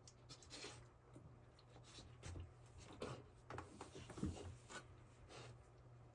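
Golden retriever puppy gnawing and scratching at a wooden cupboard: faint, irregular scrapes and small knocks, the clearest about three and four seconds in.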